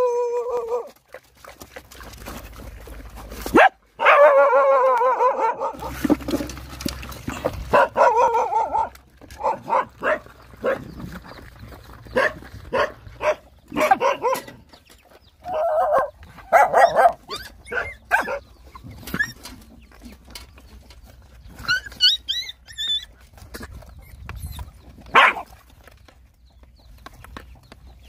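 A litter of puppies and dogs barking and yipping while they squabble over a shared basin of food, with a couple of longer wavering whining cries early on and many short sharp yelps through the middle. A few high chirps come about three-quarters of the way through.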